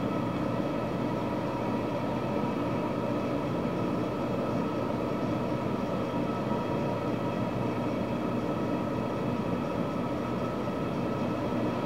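A steady mechanical hum with several constant tones in it, unchanging throughout.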